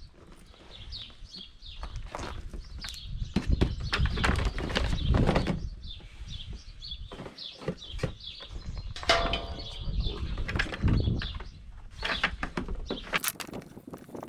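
Irregular knocks and clattering, with birds chirping.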